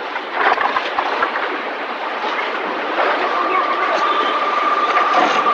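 Car-factory assembly-line noise: a dense clatter of machinery and metal parts, joined about three seconds in by a steady high whine.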